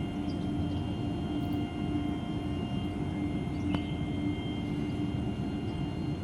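Steady drone of a running motor: a continuous low rumble with a constant hum. There is one faint click a little past the middle.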